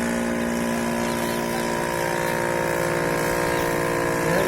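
The engine of a home-built helicopter running steadily with its rotor blades turning.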